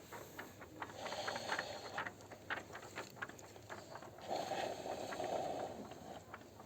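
Children's improvised nature soundscape made with classroom objects: scattered light taps and clicks, with a stretch of hissing, rustling noise about a second in and a louder one from about four to six seconds in.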